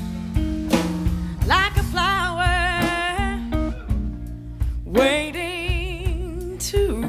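Live band playing a bluesy intro: a lead line slides up into long notes with wide vibrato, twice, over bass and drums.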